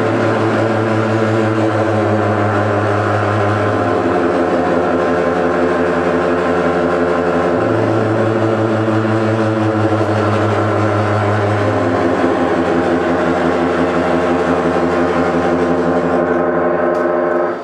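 Live band playing a loud, dense drone of amplified electric guitar and electronics, with a low bass note that shifts pitch every four seconds or so.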